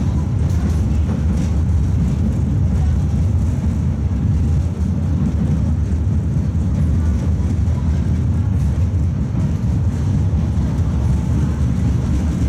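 Coupled Tatra T3 trams running along the track between stops, heard on board: a steady low rumble.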